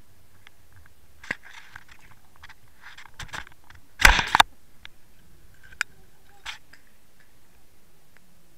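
Underwater clicks, scrapes and crunches picked up through the camera rig as it is jerked and spun, with a loud clatter of knocks about four seconds in.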